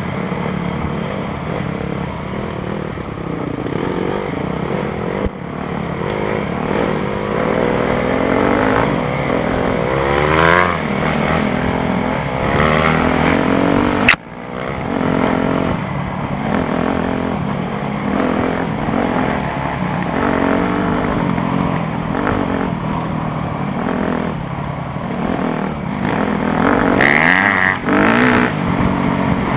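2013 Yamaha YZ250F's 250 cc four-stroke single-cylinder engine revving up and falling back over and over while riding, heard from the rider's helmet. A sharp click about halfway through, with the sound dipping briefly after it.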